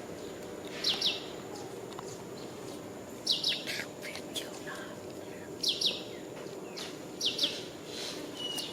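A bird calling: a quick pair of high notes that fall in pitch, repeated about every two seconds over a steady low background hum.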